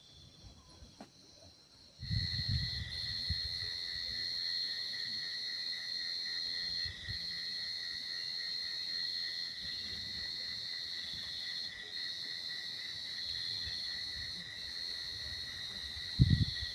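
Night insects, crickets or cicadas, trilling in a steady high-pitched chorus that starts suddenly about two seconds in, with a low bump near the end.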